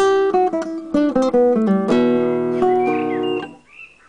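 Nylon-string classical guitar played Spanish-style, with plucked notes and strummed chords. The playing stops about three and a half seconds in and the last chord fades out.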